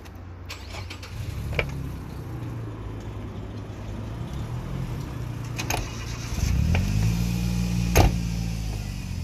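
A car engine running at low revs. It picks up about six and a half seconds in, holds the higher speed, then eases off near the end. A few sharp clicks cut through, the loudest about eight seconds in.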